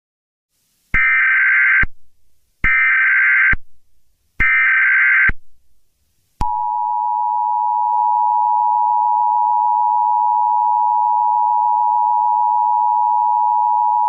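Emergency Alert System tones: three short data bursts of the SAME header, each under a second, then the steady two-tone EAS attention signal (853 and 960 Hz) starting about six seconds in. Together they announce a Civil Danger Warning.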